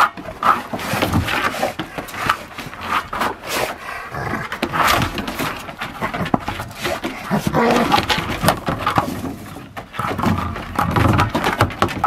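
An orange toy ball makes loud, irregular noises while two dogs paw and mouth it, with dog play sounds mixed in.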